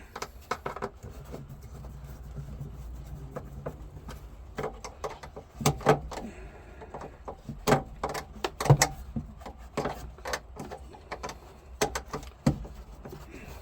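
Irregular clicks, knocks and light rattles of a car's glove box liner and door being handled and fitted in the dashboard, over a low steady hum.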